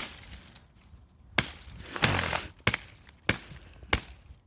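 Hatchet chopping tree limbs: six sharp blade strikes into wood, the first a second and a half apart, then coming about every two thirds of a second.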